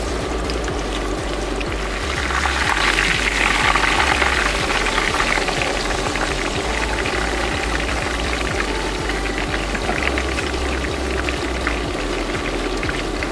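Fish fillet frying in hot oil in a wok: a steady sizzle with fine crackles and pops, swelling louder for a few seconds about two seconds in.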